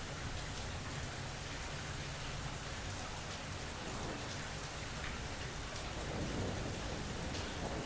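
Steady rain falling, with a low thunder rumble underneath that swells about six seconds in.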